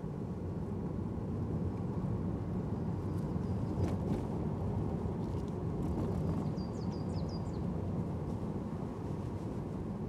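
Mazda NC Roadster (MX-5) with its top down driving along a forest road: steady engine and tyre noise heard from the open cabin. A bird gives short chirps about three seconds in and again around seven seconds.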